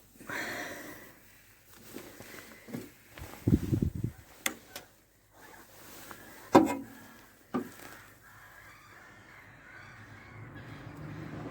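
Hand tools and wiring being handled: a short rustle at the start, a low rumble of handling noise about three and a half seconds in, then a few sharp clicks and knocks, consistent with cutting a wire and crimping on a spade connector.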